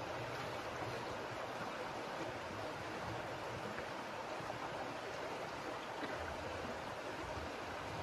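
Mountain stream running with a steady, even rush of water.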